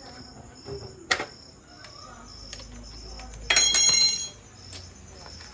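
Metal tools clinking against a motorcycle's battery-compartment hardware: one sharp click about a second in, then a bright metallic jangle lasting under a second past the middle. Crickets chirp steadily underneath.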